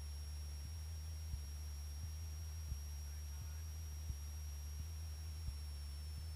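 Low, faint, steady drone of a single-engine Cessna's piston engine and propeller in cruise, heard through the cockpit intercom recording. A thin, steady high-pitched whine runs over it, with a few faint clicks.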